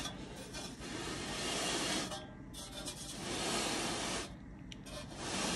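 Dry rubbing noise that swells and fades about three times.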